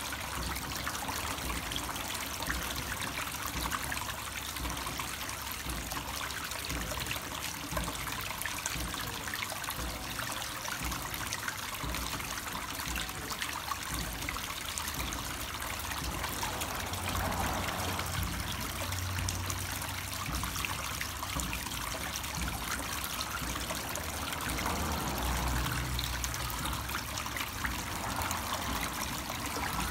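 Water trickling and splashing steadily down a small rock waterfall feature into a pond.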